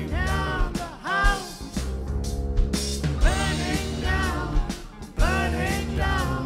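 Live rock band playing an instrumental passage: electric guitar, bass, keyboards and drum kit, with a lead line of repeated sliding notes that rise and fall about once a second over a steady drum beat.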